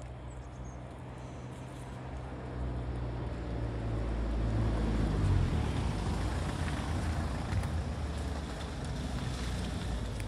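A motor vehicle driving past on the street: engine rumble and tyre noise swell to their loudest about halfway through, then ease off.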